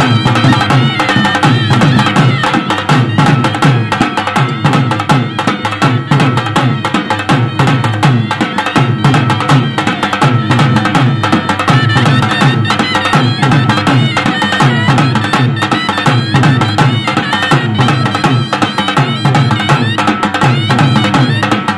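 Indian folk band music for a raas-garba dance: dhol drums beating a steady, driving rhythm under a wavering reed-instrument melody, with many sharp percussive hits on top.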